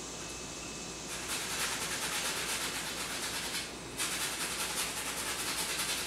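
Flat paintbrush scrubbing acrylic paint onto a stretched canvas in fast back-and-forth strokes, a scratchy rubbing. It comes in two stretches, with a short break a little after the middle.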